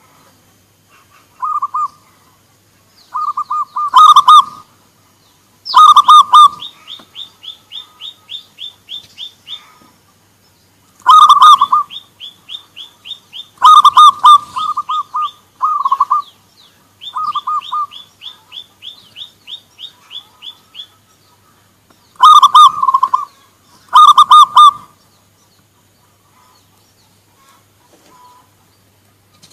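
Zebra doves (perkutut) cooing back and forth in short phrases of quick repeated coo notes, one phrase every few seconds. Runs of quick high notes, about three a second, fall between the phrases. The calling stops a few seconds before the end.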